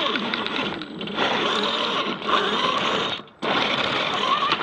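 Electric motor and gear drive of a 3D-printed all-wheel-drive RC rock crawler running in three bursts of throttle, a grinding whine that slides in pitch, with short pauses between bursts and a stop near the end.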